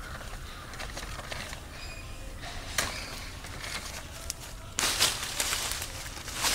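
Black pepper vine leaves and stems rustling as short runner cuttings are cut from the vine with a knife and pulled free, with a few sharp clicks. The loudest rustling comes about five seconds in and again near the end.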